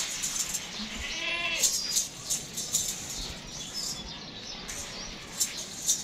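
A goat bleats once, briefly, about a second in, with several sharp knocks and clatter around it.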